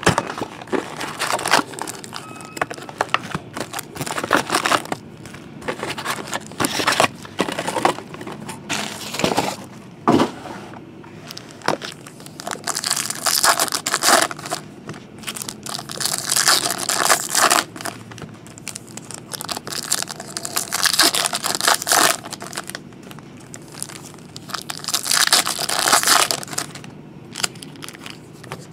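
Foil trading-card pack wrappers crinkling and being torn open by hand, in repeated bursts of a second or two.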